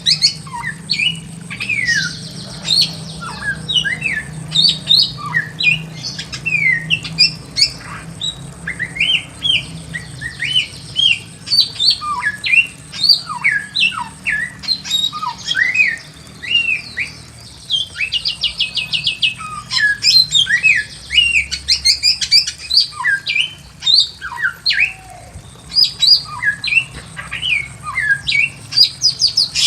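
Bare-throated whistler (samyong) singing continuously: a dense run of short slurred whistles and harsher chattering notes, with a quick trill partway through.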